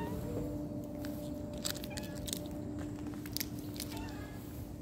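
A cat giving a few short, faint chirping meows, with several sharp clicks or crunches in between.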